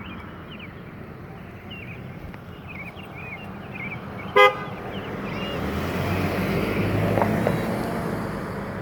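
A car horn gives one short toot about halfway through, the loudest sound here. A vehicle then passes, its road noise rising and fading, with birds chirping in the background.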